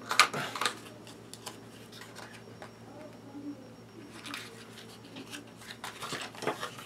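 Small cardboard product box being opened by hand: scattered crackles, scrapes and clicks of paperboard and packing, busiest in the first second and again near the end.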